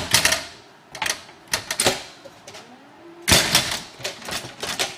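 Door hardware clicking and clacking as a door fitted with a closer is worked shut, with the loudest clunk of the latch about three seconds in. A faint creak rises in pitch just before it.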